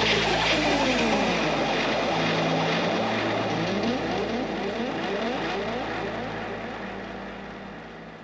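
Electronic sweeping sound effects from a sonidero's sound system: many overlapping rising and falling pitch glides over a steady low hum, playing as the intro to the musical background and fading out over the last couple of seconds.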